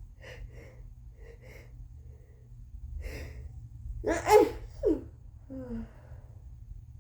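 A woman with a very congested head cold builds up to a sneeze: short catching breaths, then a deeper drawn-in breath about three seconds in. A loud sneeze follows about four seconds in, trailed by short voiced sounds that fall in pitch.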